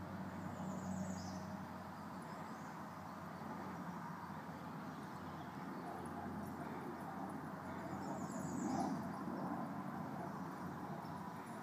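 Outdoor woodland ambience: a steady low background rumble, with a bird's short descending call twice, about a second in and again near eight and a half seconds.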